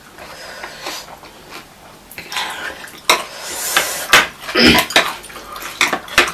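Chopsticks clicking and scraping against a ceramic plate, a run of sharp taps that grows busier in the second half, with close-up chewing sounds.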